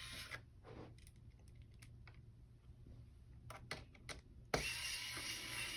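A few faint, sharp clicks of a small screwdriver working the screws that hold a laptop's screen bezel, most of them bunched together past the middle.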